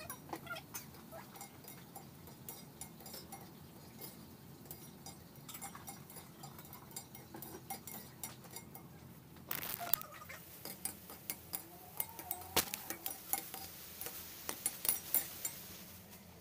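Faint kitchen clatter: scattered light clicks and clinks, growing busier and sharper from a little past the middle.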